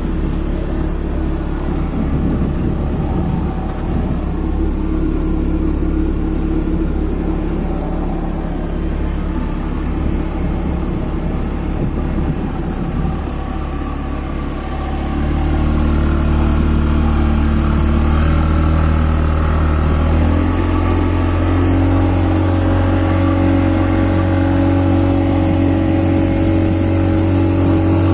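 Boat's outboard motor running steadily under way. About halfway through it speeds up, getting louder and higher, and its pitch steps up again a few seconds later.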